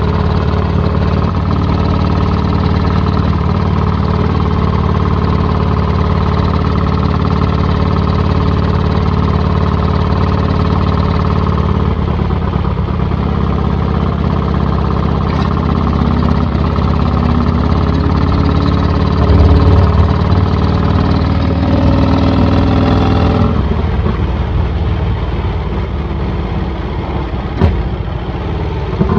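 Vincent 1000cc V-twin motorcycle engine running steadily under way through an open straight-through exhaust, heard from the saddle. About three-quarters of the way through, the note softens and gets a little quieter as the throttle eases.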